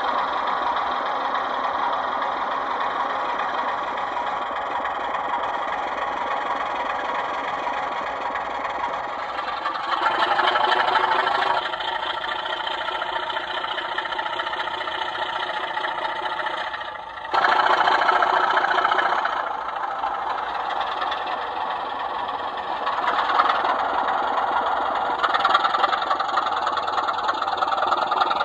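Sound-fitted model Class 24 diesel locomotives playing recorded Sulzer diesel engine sound through their small onboard speakers, running steadily. The engine sound grows louder for a couple of seconds about ten seconds in, again after a short dip around seventeen seconds, and through the last few seconds.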